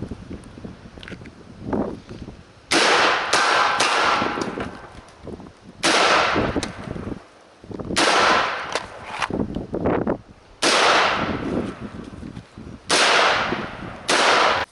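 A string of about seven gunshots at uneven intervals of one to two and a half seconds. Each is a sharp crack followed by a fading echo.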